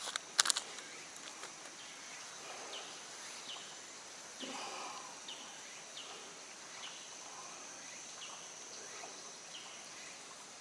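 Quiet outdoor ambience: a bird repeating a short falling chirp about once a second over a steady high insect hum. A brief crinkle of a plastic hook packet at the very start.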